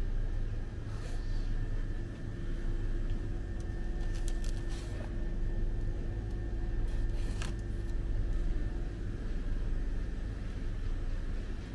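Steady low rumble and hum of a supermarket's ventilation and refrigeration, with a faint steady high whine. A few brief plastic crinkles and clicks come in the middle as a shrink-wrapped four-pack of beer cans is handled.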